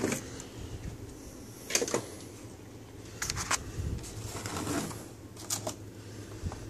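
A cardboard toy box being handled and opened by hand: scattered clicks, taps and rustling of the cardboard and packaging, in short clusters a second or so apart.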